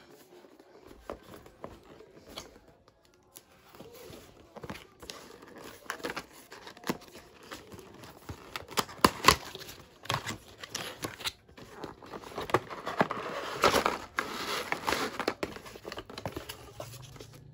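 A cardboard product box being opened by hand: flaps and inner tray scraping, tapping and snapping, with two sharp snaps about halfway through. Plastic packaging crinkles in a longer stretch of rustling in the second half.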